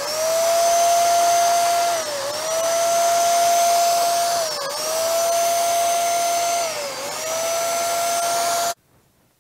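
Handheld electric HVLP paint sprayer, its built-in turbine running with a steady high whine like a vacuum cleaner while it sprays high-build primer. The pitch sags briefly and recovers three times, then the motor cuts off suddenly near the end.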